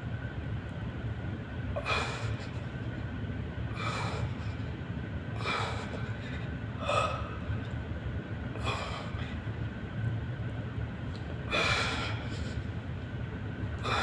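A man's sharp, forceful breaths, one about every two seconds, pushed out with the effort of each repetition of dumbbell lateral raises, over a steady low hum.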